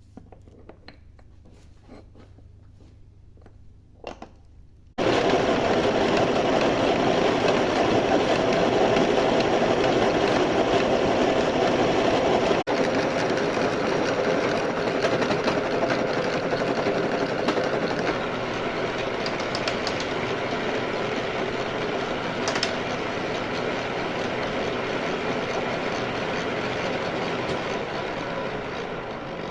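Lathe running and cutting: a loud, dense, steady machining noise that starts abruptly about five seconds in, after a few faint clicks, and carries on, easing slightly, until just before the end.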